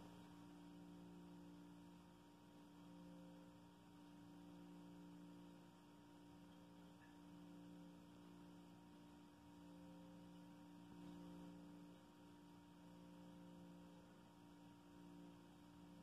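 Near silence: a faint, steady electrical hum with no change.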